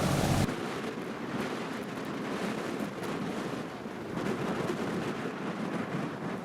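A boat engine's low hum cuts off abruptly about half a second in. After it, wind buffets the microphone unevenly over faint harbour noise.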